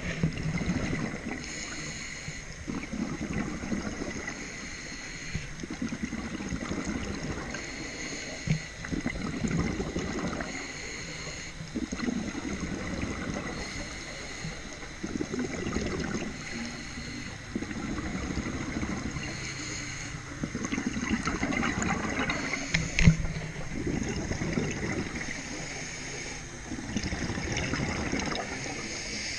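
Scuba regulator breathing underwater: a hissing inhalation alternates with a gurgling rush of exhaled bubbles, one breath every few seconds. A sharp knock comes about 23 seconds in.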